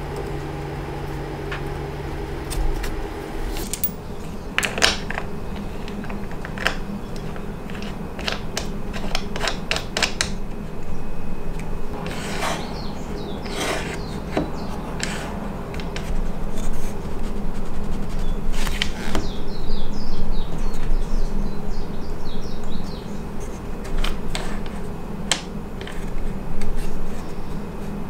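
Wooden jig parts being handled and fitted together by hand: scattered small knocks and clicks of wood on wood, with stretches of sliding and rubbing, over a steady low hum.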